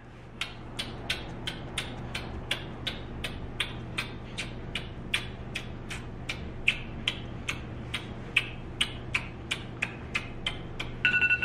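Rapid repeated kisses: short wet lip smacks at about three a second, kept up without pause. A steady electronic beep, the challenge timer going off, starts near the end.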